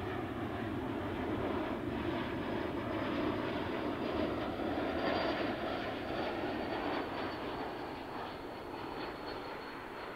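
Embraer E190-E2 regional jet with geared turbofan engines passing on its landing: a steady rush of engine noise with a faint high whine that drifts slightly lower. It swells to its loudest about five seconds in, then fades away.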